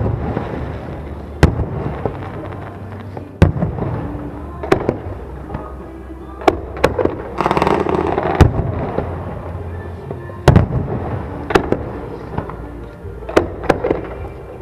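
Aerial fireworks shells bursting: about a dozen sharp bangs at irregular intervals, with a hissing crackle about halfway through.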